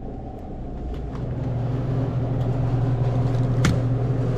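Steady low hum of a refrigerated drinks cooler's machinery, with a single sharp knock near the end as a plastic soda bottle is taken from the shelf.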